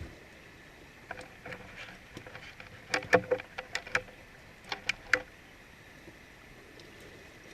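A flurry of sharp clicks and crackles, most of them packed into the middle few seconds, over a faint, steady, high-pitched background drone.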